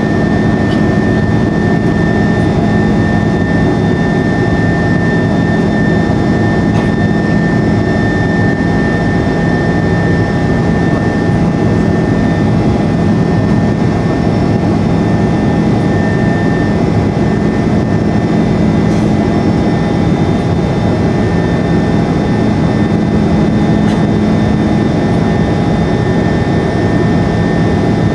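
Airbus A330-200 jet engines heard from inside the passenger cabin during the climb after takeoff: a loud, steady drone. A thin high whine fades out a little past halfway.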